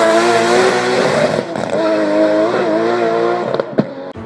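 Car sound with squealing tyres: a loud, steady pitched whine that wavers about halfway through. A single sharp crack comes near the end, then the sound fades out.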